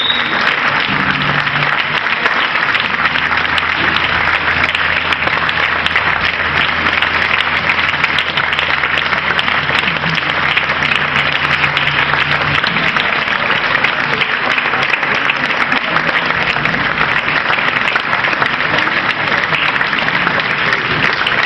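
Audience applauding steadily and densely, with a low steady hum under the clapping until about halfway through.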